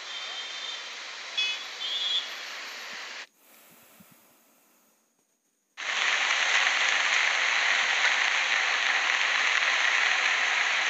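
Floodwater rushing past a broken boundary wall, a loud steady rush. Before it, after a quieter stretch of steady rushing with a few faint high chirps, the sound drops to near silence for about two seconds.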